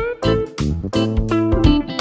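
Background music: plucked-string notes over a beat.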